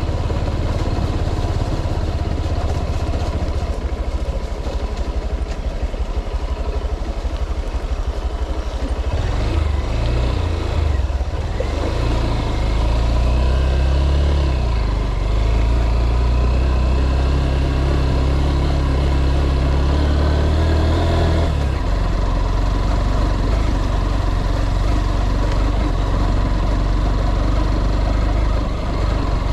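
Motor vehicle engine running steadily while under way. Its low hum changes note about nine seconds in and again at about twenty-two seconds.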